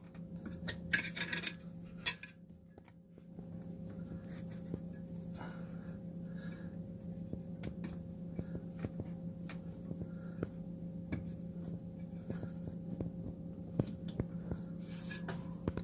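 Small clicks and scrapes of a screwdriver working at the cracked plastic motor coupling pieces on a Whirlpool washer's motor shaft, prying them loose, over a steady low hum.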